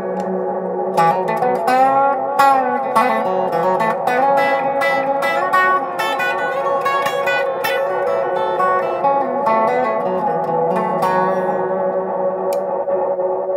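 Electric guitar picked through a Fairfield Circuitry Meet Maude analog delay pedal: sustained notes and chords with echoing repeats, the pitch wavering and bending in places from the delay's modulation.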